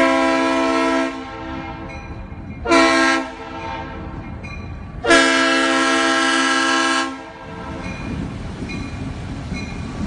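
Norfolk Southern diesel locomotive's multi-note air horn sounding the grade-crossing warning: a long blast, a short one, then a longer two-second blast, with the locomotive's rumble between them.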